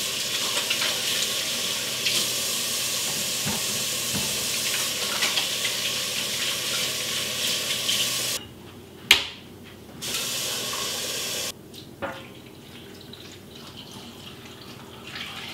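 Kitchen faucet running steadily into a quart glass jar, shut off about eight seconds in, followed by a sharp clink. The tap then runs again for a second or two and stops with another click. Near the end the water is poured from the jar into a roasting pan, much more quietly.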